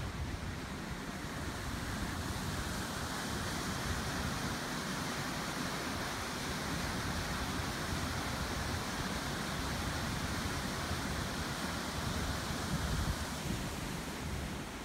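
Wind on the microphone outdoors: a steady rushing hiss with low, uneven buffeting rumble.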